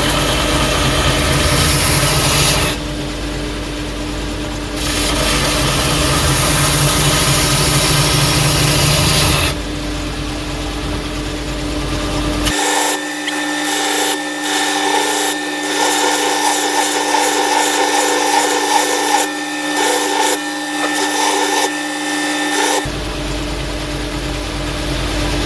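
Power grinder running and grinding the horn of a small cast-iron anvil, the abrasive biting in spells as it is pressed on and lifted off, over a steady motor hum.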